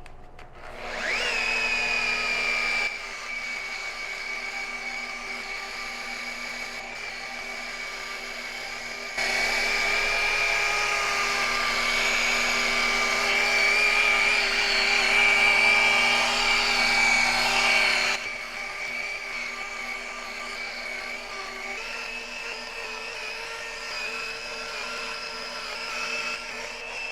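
Electric glass polisher spinning up about a second in, then running at a steady high whine while buffing out a scratch on a glass pane; it is louder for a stretch in the middle.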